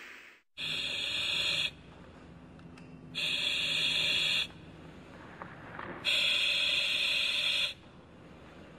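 Three bursts of a hissy, buzzing sound effect, each about a second and a half long, with quiet gaps of similar length between them.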